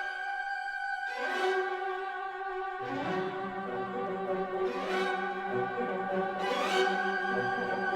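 Background music with bowed strings: held chords with rising swells every second or two, and lower notes joining about three seconds in.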